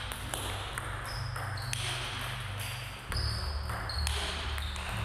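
Table tennis multiball drill: celluloid ping-pong balls clicking in quick succession, about two to three a second, as they come off the bats and bounce on the table. A few short high squeaks sound between the hits.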